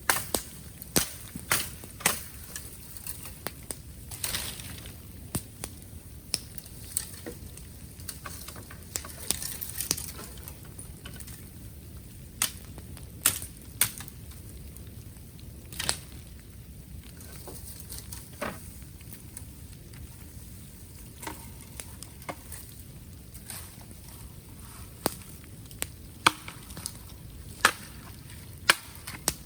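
Bamboo bonfire crackling, with sharp irregular pops and cracks about once a second over a steady hiss. The louder cracks are burning bamboo stalks splitting in the heat.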